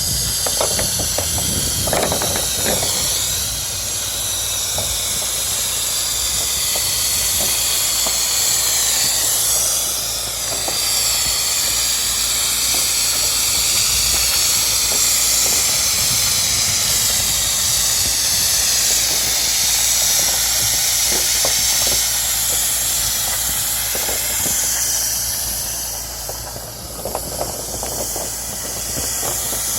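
Steady high-pitched hiss of an airless spray gun spraying silicone roof coating, with a low engine-like hum underneath. The hiss eases off briefly about ten seconds in and again for a couple of seconds near the end.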